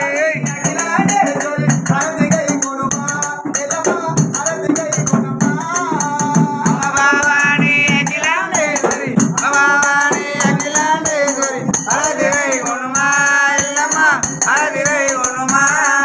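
Devotional aarti song sung by several voices, with a double-headed rope-tensioned barrel drum (dhol) beaten in a steady rhythm and a constant high metallic jingle keeping time.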